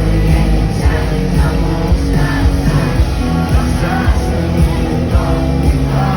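Live rock band playing a song: steady drum beats and heavy bass under a singing voice.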